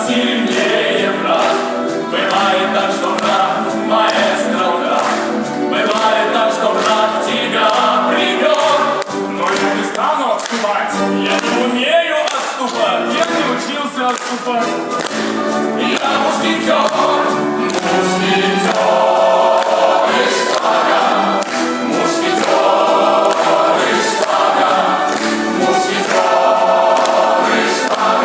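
A choir singing to musical accompaniment.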